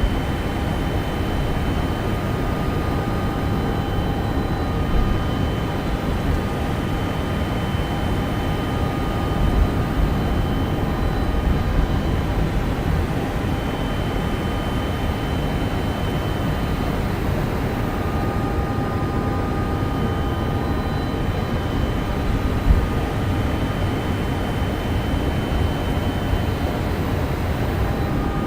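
Steady flight-deck ambient noise in a Boeing 747-400 before engine start: an even low rush of airflow and equipment fans, with faint steady whining tones that come and go.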